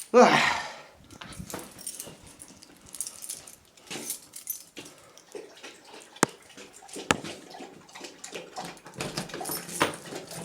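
A dog gives a loud yelp falling in pitch right at the start, followed by scattered rustling and knocking with two sharp clicks around the middle.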